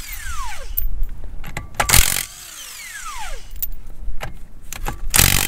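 Milwaukee 18-volt cordless impact wrench hammering lug nuts off a trailer wheel in short trigger pulls, twice in longer bursts (about two seconds in and near the end), each burst followed by the motor's whine dropping in pitch as it spins down.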